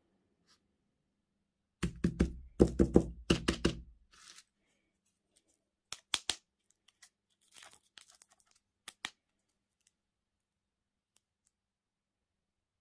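Candy or toy packaging being torn open by hand: a run of rough rips, then a few sharp clicks and light crinkling.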